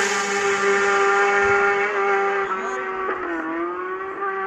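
Race motorcycle engine at full throttle moving away after passing at speed. Its pitch drops sharply as it goes by, then holds a steady high note that fades, dipping briefly and recovering about three seconds in.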